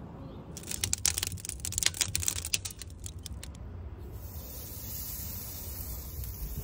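Quick, irregular crackling and popping over a charcoal grill as marinated chicken skewers go onto the hot grate, giving way about four seconds in to a steady high sizzle.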